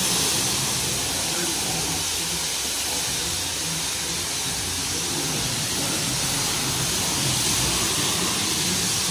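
High-pressure wash lance at a self-service car wash spraying water onto a car's body, a steady hiss with no breaks.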